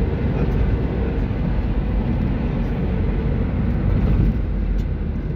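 Steady road noise inside a moving car's cabin: a low, even rumble of tyres and engine while driving.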